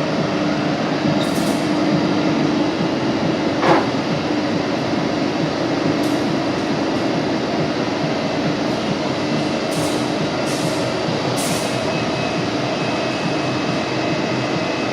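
Granulator machine running steadily with a droning hum, a sharp knock about four seconds in, and a few short hisses.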